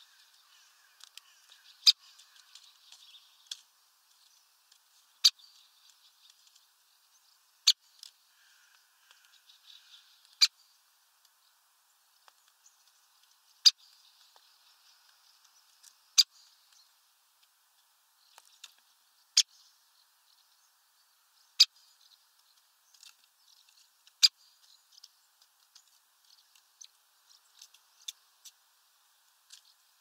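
Great spotted woodpecker at a sunflower-seed feeder making sharp single clicks about every two to three seconds, with faint rustling of seeds between them.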